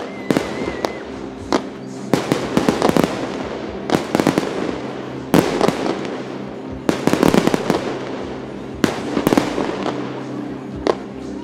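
Fireworks display: aerial shells bursting in quick clusters of sharp bangs and crackles, a new volley every second or two.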